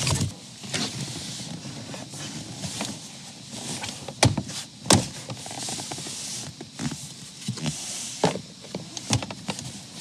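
Hands rubbing and pressing on plastic interior trim panels, with a few sharp clicks and knocks; the loudest comes about five seconds in.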